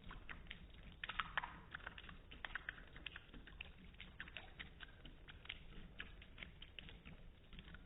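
A cat lapping water with its tongue, a quick, irregular run of soft wet clicks.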